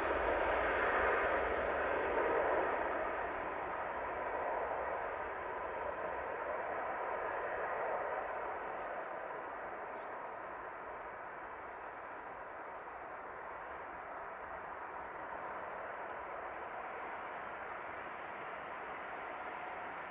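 Emirates Airbus A380's four jet engines at takeoff power during the takeoff roll: a steady rushing roar that slowly fades as the aircraft moves away down the runway.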